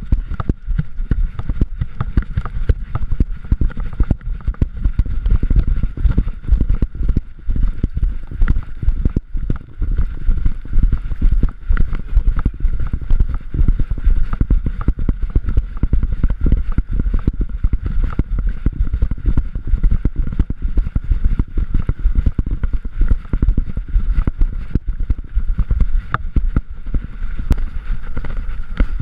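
Rapid, irregular thudding and low rumbling from a GoPro in a chest harness on a running wolf, the camera jolted with each bound and wind rushing over its microphone. A faint steady high tone sits underneath.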